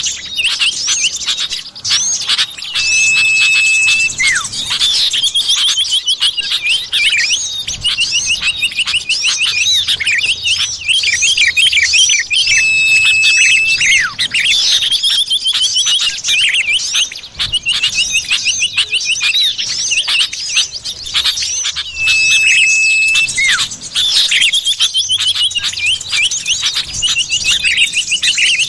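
Common iora (cipoh) calls played as a bird-luring track: fast, busy chirping and slurred notes, broken about every ten seconds by one held, steady whistle, the same sequence repeating as a loop.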